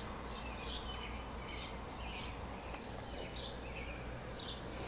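A small bird chirping: short, high, falling chirps repeated irregularly, two or three a second, over a faint low steady rumble.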